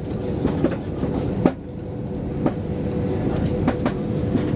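Airbus A320-200 taxiing, heard from inside the cabin: a steady rumble and hum, with several irregular knocks and thumps as the aircraft rolls along the taxiway.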